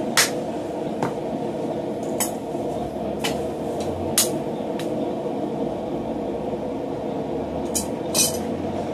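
Hand-hammer blows on a red-hot 12 mm round steel bar lying on a steel swage block, about one a second for five seconds, then a pause and two more sharp strikes near the end. A steady rushing noise runs underneath.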